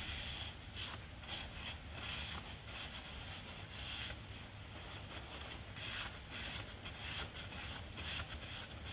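A cloth rubbing and wiping over a car's bare rear wheel hub, cleaned with aerosol brake cleaner, in repeated hissy strokes over a steady low rumble.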